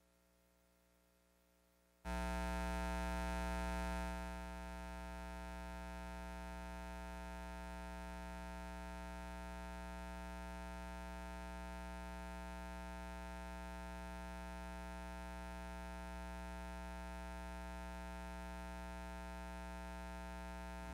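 Electrical mains hum from the sound system, switching on abruptly about two seconds in. It is louder for a couple of seconds, then settles into a steady buzz with no other sound.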